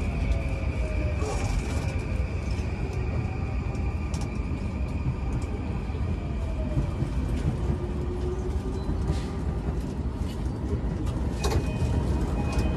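Running noise inside an E235-1000 series electric train: a steady rumble of wheels on rail, with the traction motors' whine gliding down in pitch several times as the train slows.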